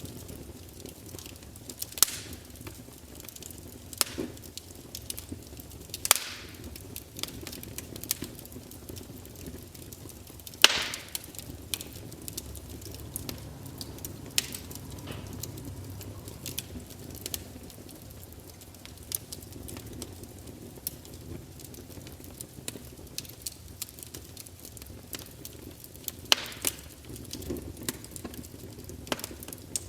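Campfire burning: a low steady rush with scattered sharp crackles and pops, the loudest pop about ten seconds in.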